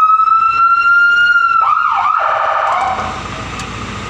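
Fire truck's electronic siren: a wail tone held steady at its top pitch, then a quick dip and a fast warbling yelp as the mode changes, before it drops off about three seconds in.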